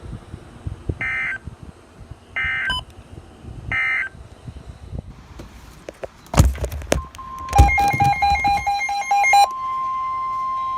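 Emergency Alert System digital data bursts on a weather radio broadcast: three short warbling tones about a second apart, the end-of-message signal closing the warning. A knock follows about six seconds in, then a couple of seconds of rapid beeping, and a steady alert tone near 1 kHz, the weather radio warning alarm, begins about seven seconds in and keeps going.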